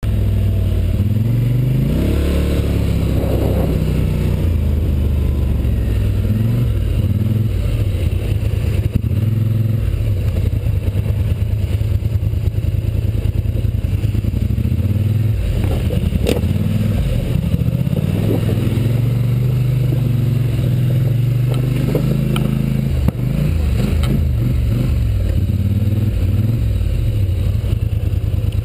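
ATV engine heard close up from a camera on the machine, running and revving up and down repeatedly as it is ridden, with a few sharp knocks as it goes over loose rocks.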